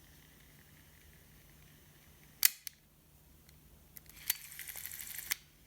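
Sony M-100B microcassette recorder's buttons being pressed: a sharp double click about halfway in, then a short high whir of the tape mechanism running for about a second, ending in another click.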